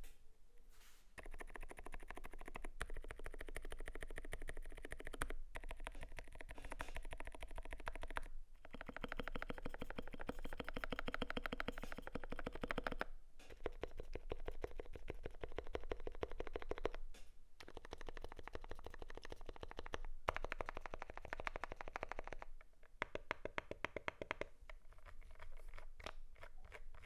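Fast typing on a Glorious GMMK Pro mechanical keyboard with lubed ZealPC Sakurio linear switches, a polycarbonate plate and XDA keycaps: a dense run of keystroke clacks broken by several short pauses.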